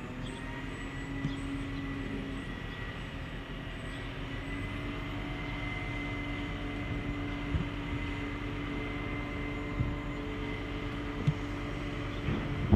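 Quadcopter drone's rotors humming steadily, the pitch stepping up slightly about four to five seconds in. A few short knocks, more of them near the end.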